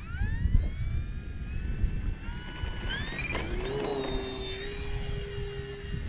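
Electric brushless motor and propeller of an E-Flite Air Tractor 1.5m model plane throttling up for takeoff: a whine that rises in pitch over the first second or so, climbs again about three seconds in, then holds steady as the plane flies off. Wind rumbles on the microphone throughout.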